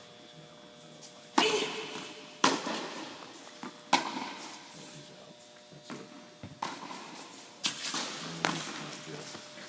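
Tennis ball struck by rackets and bouncing on a hard court during a rally: a string of sharp pops about a second or two apart, each echoing through a large indoor tennis hall.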